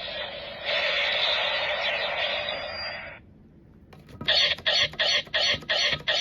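Electronic finisher sound effects from a toy Kamen Rider W Double Driver belt's small speaker. A thin, hissing burst lasts about three seconds, then after a short pause comes a rapid string of stuttering pulses, about four a second.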